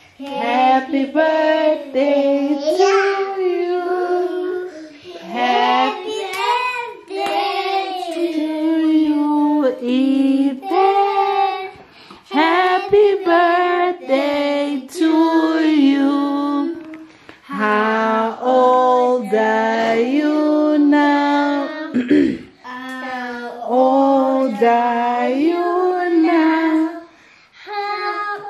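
Children singing a birthday song together in sung phrases with short breaks between them, a woman's voice among them.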